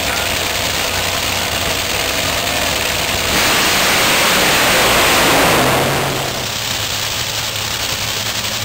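Two drag race cars' engines running at the starting line, then launching down the strip about three seconds in. The sound swells to its loudest around five seconds and falls away as the cars pull off down the track.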